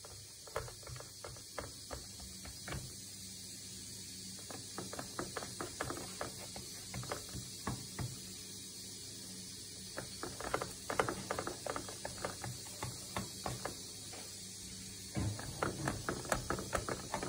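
Sürmene kitchen knife cutting down through milk-soaked güllaç pastry sheets in a metal tray, the blade tapping and scraping on the tray bottom in runs of quick, irregular clicks that get louder and closer together near the end.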